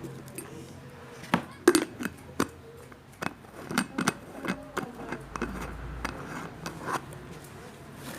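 A string of irregular sharp clicks and light knocks, the loudest about a second and a half in, over a quiet background.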